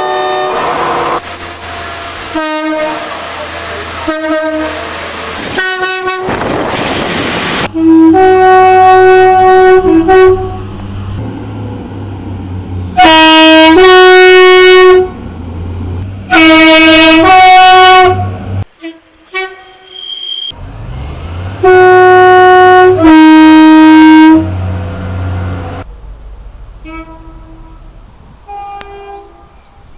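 British train two-tone horns sounding again and again, each blast switching between a low and a high note. The loudest blasts come in the middle stretch. Some are short toots and others are held for a second or two, with diesel engine rumble and the rush of passing trains underneath.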